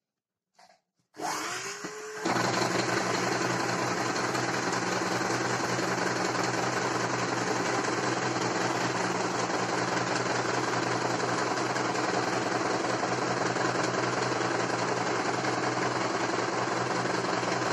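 Small electric sewing machine starting up with a short rising whine about a second in, then running steadily at speed as it stitches a seam through silk fabric.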